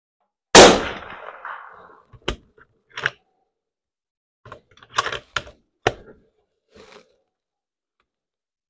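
A .308 Win bolt-action rifle fires one shot of 1975 Soviet ammunition with a tombac-jacketed bullet, a loud crack about half a second in with a tail of echo lasting over a second in the metal-walled shed. The bolt is then worked, a string of sharp metallic clicks and clacks as the spent case is extracted and the next round chambered.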